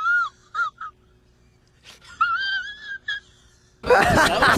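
A high, wavering whine whose pitch wobbles up and down, heard in two stretches with a near-silent pause between them. Speech over music cuts in near the end.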